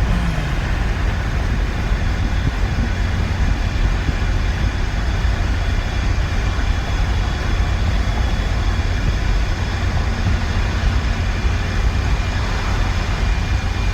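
Ford Ranger pickup driving at speed with its rear window out: heavy, steady wind buffeting and road noise in the cab, with a faint steady whine under the throttle that the owner suspects comes from a worn input bearing on the rear differential.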